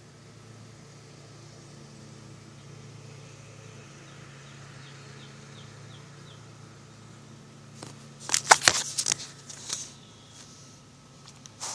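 A faint steady low hum, with a short run of faint high chirps partway through. About eight seconds in, loud crackling and rustling handling noise as the camera is moved.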